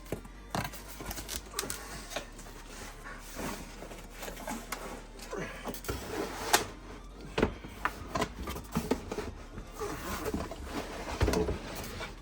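A heavy cardboard shipping box being opened and unpacked: irregular rustling, scraping and knocks as the flaps are handled and the contents are pulled out, with a sharp knock about two-thirds of the way through.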